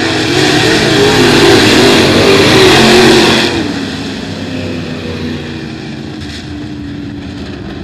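A pack of dirt late model race cars passes close by at racing speed, several V8 engines running over one another with wavering pitch. The sound is loudest for about the first three and a half seconds, then drops as the pack moves off around the track.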